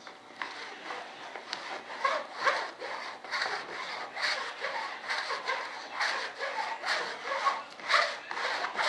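A sponge is rubbed back and forth over resin-wetted carbon fibre cloth on a model aircraft wing, working the resin into the weave. The rubbing strokes come about twice a second.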